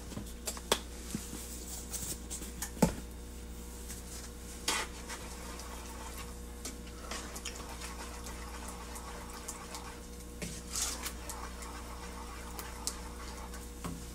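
A spoon stirring a pot of baked beans, with a few scattered clinks and knocks of the spoon against the pot, the loudest about three seconds in, over a steady low hum.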